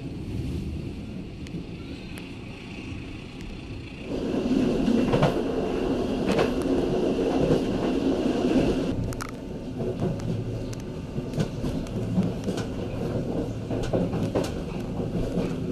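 Local passenger train running along the line, heard from on board: a steady rumble of wheels on rails that grows louder about four seconds in, with scattered clicks and knocks.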